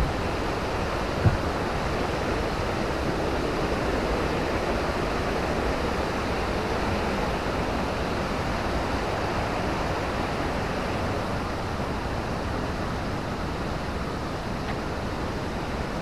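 Steady, even rush of river water falling over a waterfall, with one brief knock about a second in.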